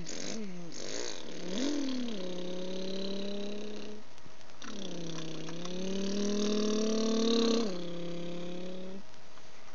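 A person's voice imitating a vehicle engine for a toy van: a held, buzzing hum in long stretches whose pitch wavers and rises in places, broken by short pauses about four and nine seconds in.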